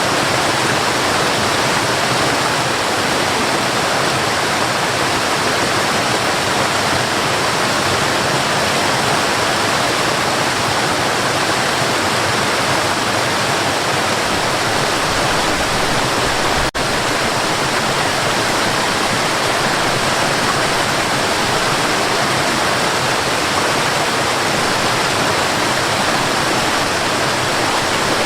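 River water running steadily, a dense, even rush with no change in strength, broken by a momentary drop-out about two-thirds of the way through.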